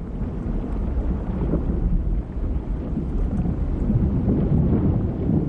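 Low, rumbling underwater water noise, irregular and without any clear tone.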